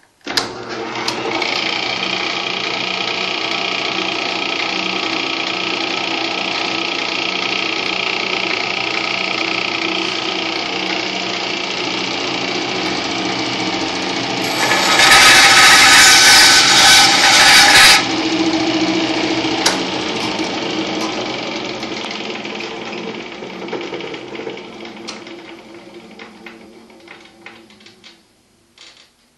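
Craftsman 103.0103 bandsaw with a Century 1/2 hp electric motor starting up and running with a steady hum. About halfway through, the blade cuts a small block of wood for about three seconds, much louder and rasping. Afterwards the saw winds down and fades out over several seconds.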